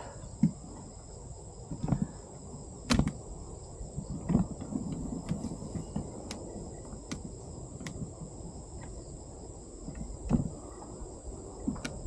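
Steady high-pitched insect chorus, with scattered sharp clicks and soft low thumps of handling; the loudest come about 3, 4 and 10 seconds in.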